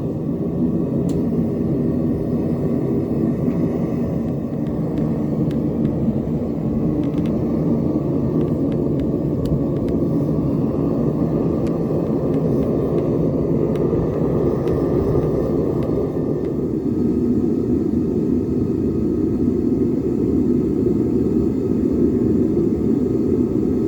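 Gas burner of a Devil Forge melting furnace running with a steady roar while copper melts in the crucible. A few faint clicks sound over it.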